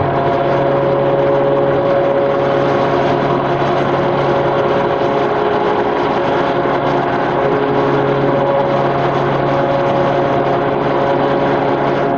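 Stamping press line running: a steady, loud industrial machinery drone with several held hum tones, without any strikes or bangs.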